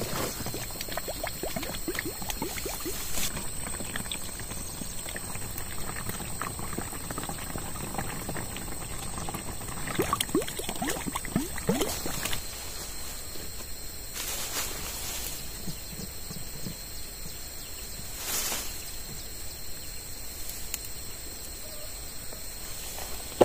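Water from a pipe pouring and splashing into the plastic tank of a backpack sprayer, quieter about halfway through.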